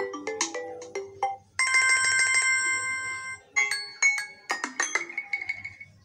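Samsung Galaxy A71 ringtone previews playing from the phone's speaker one after another, each cut off as the next is tapped. First a quick plucked-note tune, then about a second in a held, bright bell-like chord, then a run of chiming notes.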